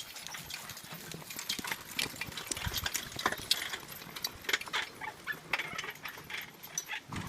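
A draft horse walking, its hooves clopping irregularly, mixed with scattered knocks and clicks from the loaded timber cart it pulls. There are a couple of low thuds, one in the middle and one near the end.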